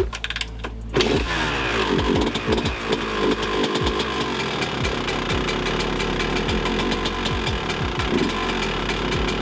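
Honda CR125's single-cylinder two-stroke engine started with one kick on its first start after a rebuild, catching about a second in and then running with repeated throttle blips that fall back each time. It seems to be running a little rich on its new Lectron carburettor.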